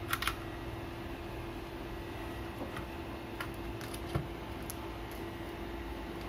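Light clicks and taps from handling a bare laptop motherboard and multimeter probes on a rubber bench mat: a quick pair at the start, then single taps about three and a half and four seconds in. They sit over a steady background hum.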